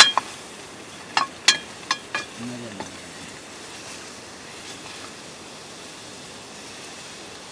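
Mutton frying in a metal wok over a wood fire, sizzling steadily, while a metal ladle strikes and scrapes the pan about five times in the first two seconds or so.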